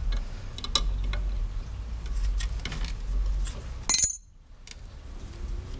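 Light metallic clicks and clinks of an adjustable wrench working on the hub of a plastic blower wheel on a fan motor shaft, then one sharp metal clank about four seconds in as the wrench is set down on concrete.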